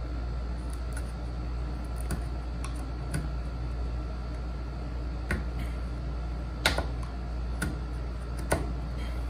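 Scattered light clicks and knocks of hand tools and wood being handled during hand-cut dovetail work, irregular and sparse, the loudest a double knock about two thirds of the way through. A steady low hum runs underneath.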